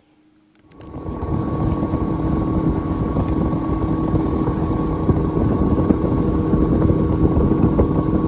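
Outboard motor of a small aluminium fishing boat running steadily under way, starting about a second in, with wind buffeting the microphone.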